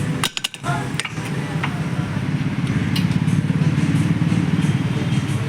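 A motor running with a steady low rumble, with a brief gap and a few light clicks about half a second in.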